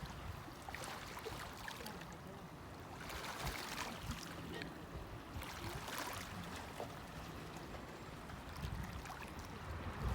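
Small sea waves washing onto a beach, a steady wash of water that swells into a hiss every few seconds as each wave breaks and runs up the shore.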